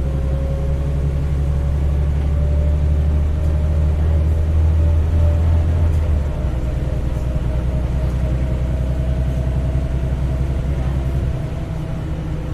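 Heuliez GX317 LPG city bus heard from on board: the engine and drivetrain run with a steady deep rumble and a thin whine that slowly rises and then levels off. The deepest part of the rumble eases about six seconds in, and the bus quietens further near the end.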